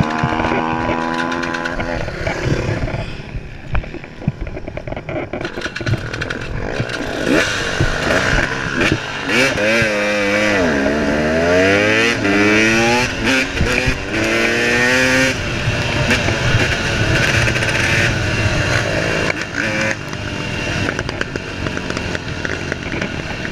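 KTM 300 XC single-cylinder two-stroke dirt bike engine running hard at race pace, its pitch dropping and climbing again several times about halfway through as the throttle is rolled off and back on.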